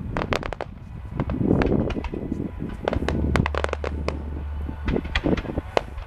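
Fireworks going off: a dense run of sharp cracks and pops from bursting shells, with a heavier boom about a second and a half in.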